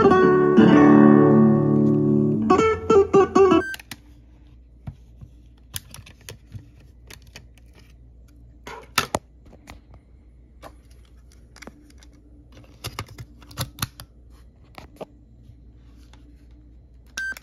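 Guitar music played from a cassette on a Sony WM-EX808 Walkman through a small speaker, stopping abruptly about four seconds in. Then come scattered plastic clicks and knocks as the Walkman's cassette door is opened, the tape is handled and the player is moved about.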